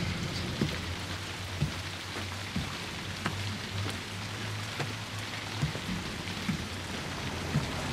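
Steady rain falling, with scattered single drips, under a low steady hum.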